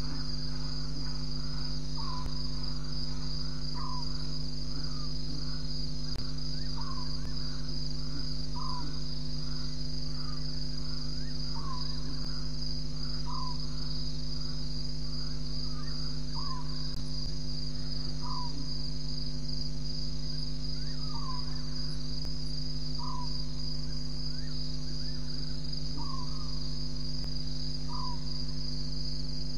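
Steady high-pitched chorus of night insects such as crickets, with a short call from another animal repeating every second and a half to two seconds over a constant low hum.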